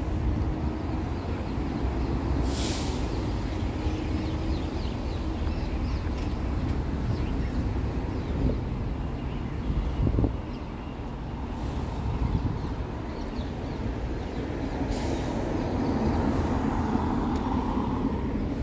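Street traffic going by, with a steady low rumble, two short sharp hisses about three seconds in and near fifteen seconds, and a vehicle's whine swelling near the end.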